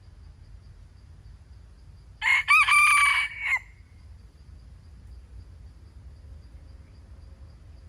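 A wild rooster crowing once, a short clipped crow of about a second and a half starting about two seconds in, over a faint steady buzz of insects.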